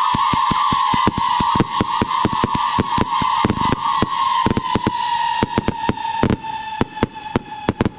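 Wizard Fireworks straight whistling-to-crackle cake going off: a steady high whistle that drifts slightly lower and fades near the end, under a rapid run of sharp crackling pops, about five a second.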